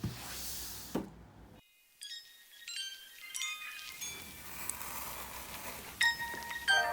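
Background music opening with a faint hiss and a click, then a sparkling run of high, chime-like notes that grows into a mallet-percussion melody near the end.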